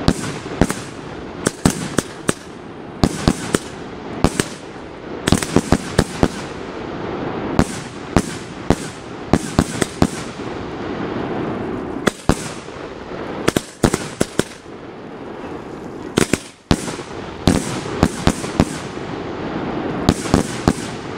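Fireworks display going off: a fast, irregular run of sharp bangs, many in quick clusters of two or three, over a continuous rushing hiss. The bangs thin out briefly a little past halfway, then pick up again.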